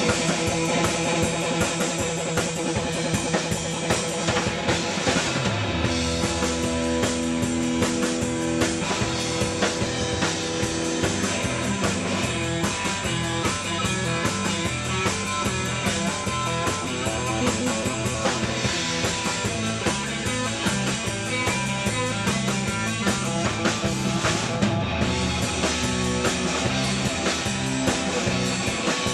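Live rock band playing an instrumental passage on drum kit and guitar over a bass line, with a steady beat.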